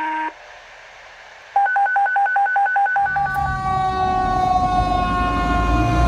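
A quick run of electronic beeps, about six a second, then a fire engine's siren whose pitch slides slowly downward. The engine's rumble comes in underneath as the siren starts.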